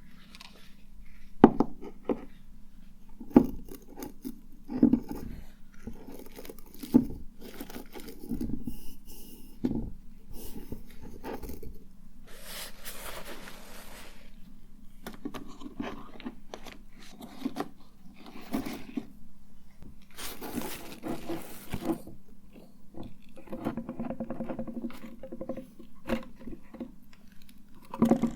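Cosmetics and their containers being handled and tapped: a series of sharp knocks and clicks, with rustling and two short hissing stretches, over a faint steady hum.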